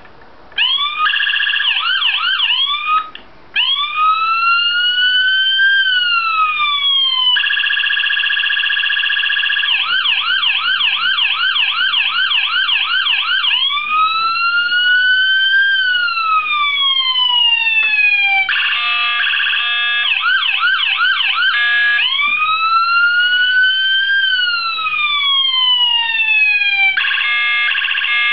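Electronic police siren cycling through its tones: a fast yelp, a slow rising-and-falling wail, a rapid steady warble and a stepped two-tone hi-lo, switching from one to the next every few seconds.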